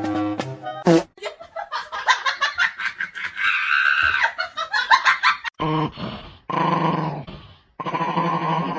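A dog vocalising: a busy run of calls, then two separate drawn-out sounds of about a second each near the end.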